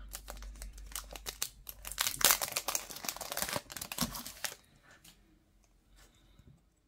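Foil trading-card pack wrapper crinkling and tearing as it is pulled open and the cards are slid out. It stops about four and a half seconds in, leaving only a few faint ticks of cards being handled.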